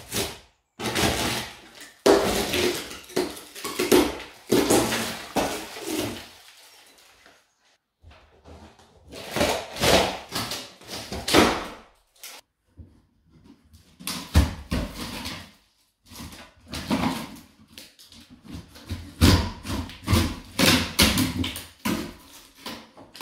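A false wooden ceiling beam being pulled off the ceiling and handled: rapid cracks, knocks and scraping of timber against the ceiling, in several separate bursts.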